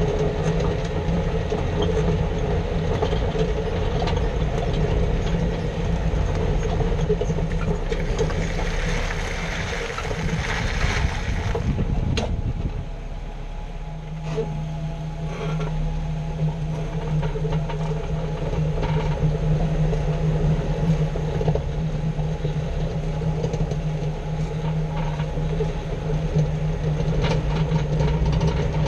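Jeep Wrangler JK running gear heard from a camera mounted underneath: a continuous low mechanical drone with rumbling noise. It shifts about 12 seconds in and then settles into a steady hum. This is the underside noise being checked for a grinding fault.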